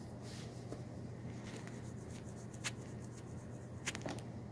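Quiet room tone: a steady low hum with light scratchy rustling and a few faint clicks, twice near the end.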